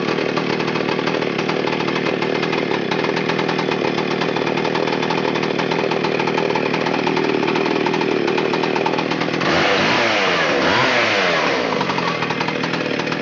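McCulloch Super Pro 125's 123cc two-stroke chainsaw engine running steadily, then revving up and down from about two-thirds of the way in before stopping near the end.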